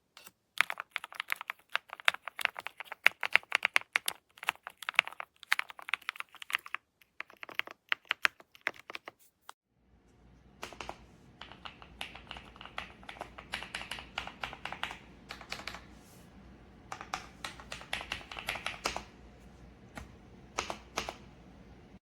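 Typing on a Kisnt gasket-mounted mechanical keyboard with linear switches: fast runs of keystrokes in bursts with short pauses. About ten seconds in, a steady low hum comes in under the typing.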